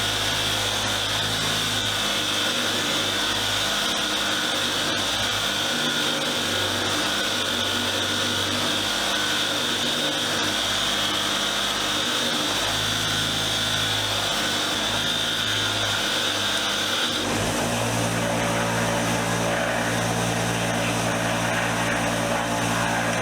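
Power-driven wire wheel running steadily against rusty steel sockets to clean them, with a steady high whine that stops about 17 seconds in. Background music plays underneath.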